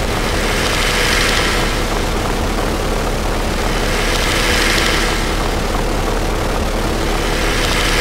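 Experimental noise music: a dense, steady low rumble with a hissing wash that swells and fades about every three and a half seconds.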